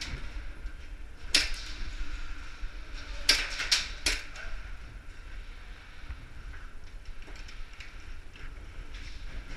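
Airsoft gun firing sharp cracking shots: one, then a quick group of three about two seconds later. Low scuffing and handling noise lies underneath.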